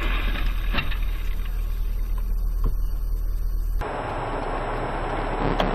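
Car on the road heard from inside: a steady low engine and road rumble with a few faint knocks. The sound changes abruptly about four seconds in.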